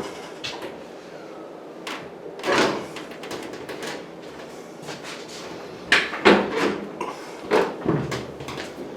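A stacking washer/dryer being slid back into place, making a few short scraping and bumping sounds: one about two and a half seconds in, then several close together in the last three seconds.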